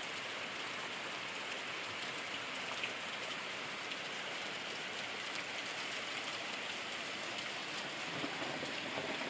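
Steady rain falling on ground and vegetation, an even hiss with faint ticks of single drops here and there.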